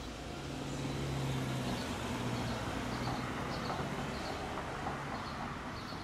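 A vehicle running with a steady low hum over a broad rushing noise, getting louder about a second in, with a few faint short high chirps.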